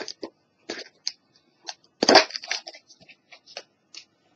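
Hands handling small plastic items: a run of short clicks and rustles, with one louder crackle lasting about half a second around two seconds in.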